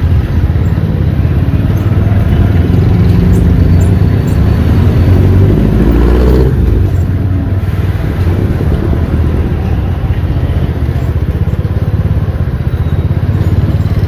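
A motor vehicle engine running steadily at close range, rising in pitch for a moment about five to six seconds in as it speeds up, with street traffic around it.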